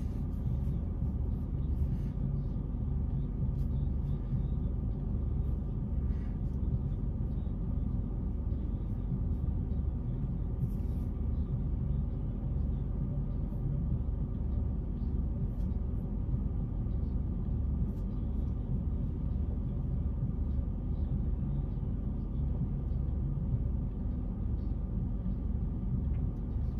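Car engine idling, a low steady rumble heard from inside the cabin, with a few faint small clicks.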